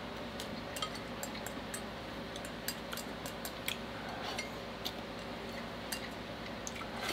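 Wooden chopsticks clicking and scraping irregularly against a ceramic bowl while the last noodles are scooped up, with a faint steady low hum underneath.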